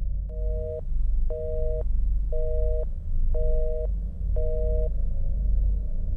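Telephone busy signal coming from a handset lying off the hook: a two-note tone that beeps on and off about once a second, five beeps. It plays over a steady low rumble.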